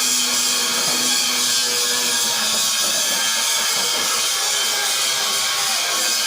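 A machine running steadily and loudly, mostly an even hiss with a faint hum underneath.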